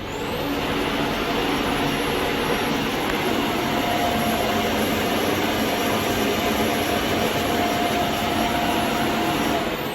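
The Dreame D10S Plus auto-empty dock's suction motor spins up with a quickly rising whine. It runs loud and steady while it empties the robot's dustbin, then winds down with a falling whine at the end.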